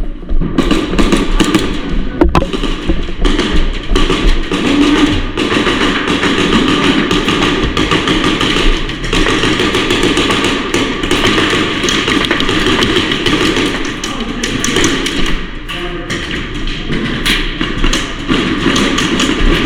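Steady background music mixed with a busy clatter of sharp taps and thuds from airsoft gunfire and BB hits.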